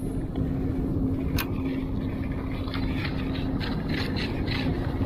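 Boat engine running steadily: a low drone with a constant hum, and a few faint clicks over it.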